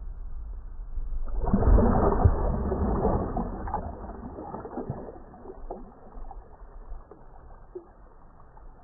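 Water splashing close to the microphone as a released bass kicks away from the hand at the surface. The splash starts suddenly about a second and a half in and fades out over the next few seconds.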